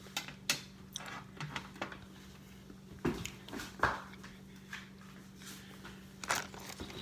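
Scattered taps, clicks and scrapes of spoons and cookie dough being handled at a bowl and baking pan, the loudest knocks about half a second, three seconds, four seconds and six seconds in, over a steady low hum.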